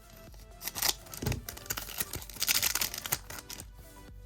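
Foil trading-card pack being torn open and handled: a few short bursts of crinkling and tearing with small clicks between them.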